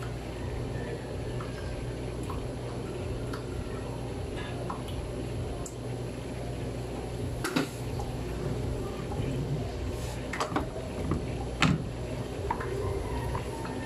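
Steady low background hum with a few soft knocks and clatters of kitchen handling, the loudest near the end as lumps of homemade butter are set down on a wooden cutting board.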